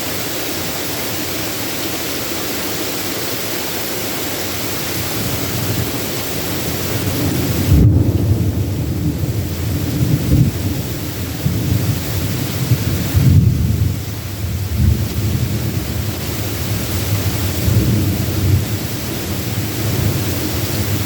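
Steady hiss of heavy rain, joined about a third of the way in by rolling thunder: deep rumbles that peak loudly twice and keep rolling on under the rain.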